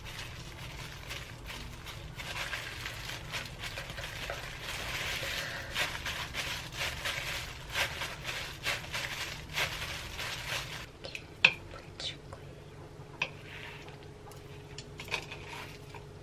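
Clear plastic disposable gloves crinkling as hands squeeze and pack cooked rice into a ball over a wooden bowl. After about eleven seconds the crinkling stops and a few sharp clicks follow: wooden chopsticks knocking against the bowl while rolling the rice ball.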